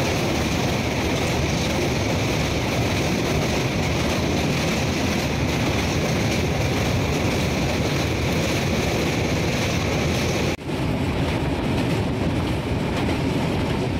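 Passenger train running over a steel truss bridge: a steady rumble of wheels on the rails with rushing air. There is a brief dip about ten and a half seconds in, after which the hiss is duller.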